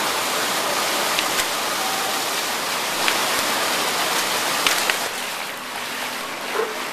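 Steady rush of water, with a few sharp ticks scattered through it; it eases slightly about five seconds in.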